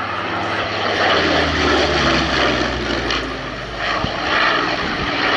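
Rolls-Royce Merlin 45 V12 engine of a Spitfire Mk V running in flight as the fighter passes, the engine sound swelling about a second in, easing off, then swelling again near the end.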